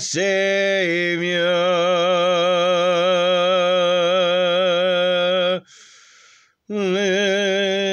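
A man singing a hymn unaccompanied, holding one long note with a wide vibrato for about five and a half seconds. A quick breath follows, and then he starts the next held note.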